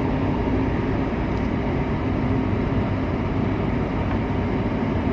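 Steady drone of a furnace's fan running, an even rushing noise over a low hum.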